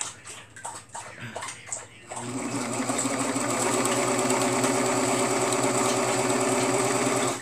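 Serger (overlock sewing machine) stitching through fabric: after a couple of seconds of faint clicks, it starts about two seconds in and runs steadily at full speed, then stops abruptly at the end.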